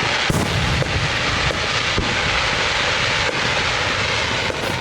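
Fireworks giving off a dense, steady crackling hiss for several seconds, with a few sharper pops in it.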